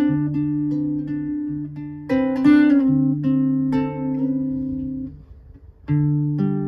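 Acoustic guitar strummed chord by chord, each chord ringing out and fading, with a short gap a little after five seconds before the next chord is struck.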